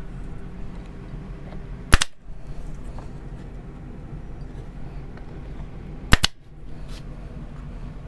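A brad nailer firing twice, about four seconds apart, driving brads through a glued wooden strip into plywood. Each shot is a single sharp crack.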